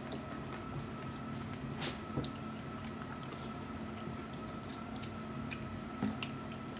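Wet squishing and scattered small clicks of shellfish shells being peeled and pulled apart by hand, with a sharper crack about two seconds in and another near six seconds. A steady faint hum runs underneath.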